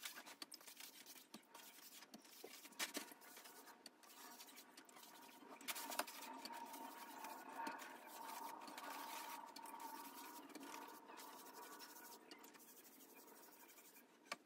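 Faint, scratchy swishing of a wet brush's bristles being worked over soaked wallpaper backing paper to saturate it, with a few light clicks.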